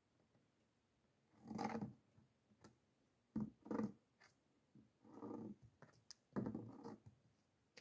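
A donkey nosing, pushing and lifting a plastic bucket with its muzzle: several short, faint noisy bursts of the bucket moving against the ground and the animal's breath, with a few light clicks.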